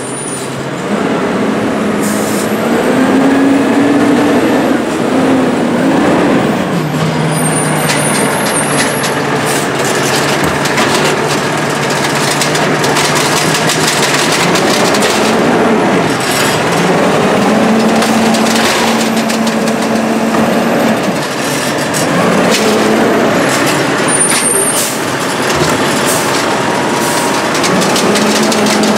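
Diesel Condor garbage truck with an Amrep HX-450 automated side-loader body. The engine revs up and down in steps as the hydraulic arm lifts and dumps a trash cart, with knocks from the arm and cart and short hisses of air.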